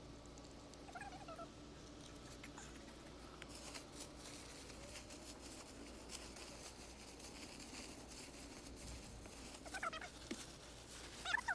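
Faint crinkling of a plastic mixing bag and shifting rubber granules and foam beads as the GreenSlope roof-levelling compound is kneaded inside it by hand. Over it a cat meows briefly about a second in and twice near the end, the loudest sounds here.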